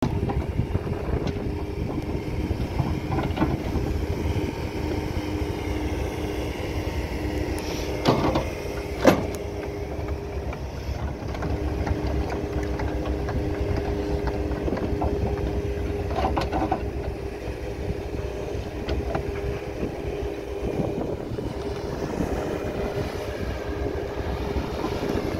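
Diesel engine and hydraulics of a Takeuchi TB290 amphibious excavator running steadily under load as it digs and tracks through wet turf, a low rumble with a steady hum. Two sharp knocks about eight and nine seconds in, and a few fainter ones later.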